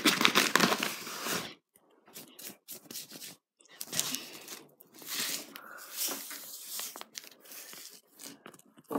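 Packaging crinkling and rustling in a run of short bursts, heaviest in the first second and a half.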